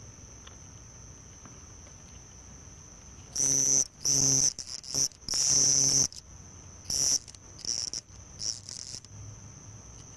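House crickets (Acheta domesticus) stridulating: a steady high-pitched trill, broken from about three seconds in by about six much louder chirp bursts of a fraction of a second to nearly a second each. The loud bursts come as two males spar at a burrow entrance.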